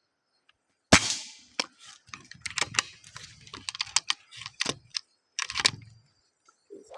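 A single shot from a 5.5 mm PCP air rifle about a second in, followed by some five seconds of irregular clicks, crackles and rustles.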